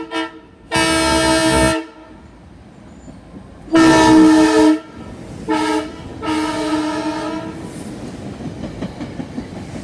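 SEPTA train horn sounding two quick toots, then long, long, short, long blasts: the grade-crossing signal. After the last blast the train's wheels rumble and click along the rails.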